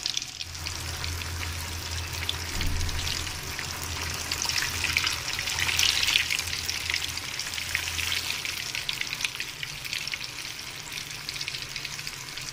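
Nargisi kofta, a mutton-keema-coated egg, deep-frying in hot oil in an aluminium kadai: a steady sizzle thick with small crackles and pops, swelling a little about halfway through.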